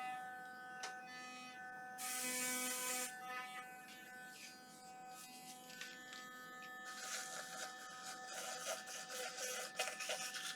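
Philips Sonicare DiamondClean sonic toothbrush running with a steady hum. There is about a second of hiss two seconds in, and clicks and rustling near the end.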